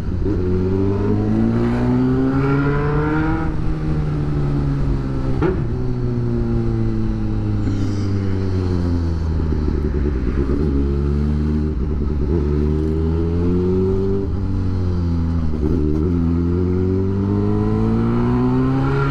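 Motorcycle engine under way, heard from the rider's seat. Its pitch climbs as it accelerates and drops back three times, over a steady low drone.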